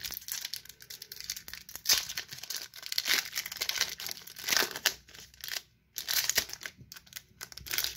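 Pokémon Shining Fates booster pack's foil wrapper being torn open by hand, crinkling and ripping in irregular rustles, with a brief pause a little past the middle.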